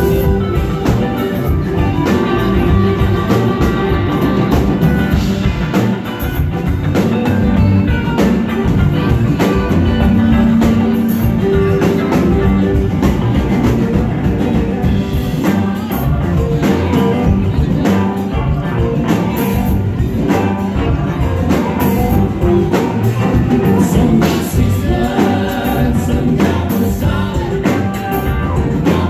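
A rock band playing live, loud and continuous: electric guitars, keyboards and a drum kit keeping a steady beat, with singing.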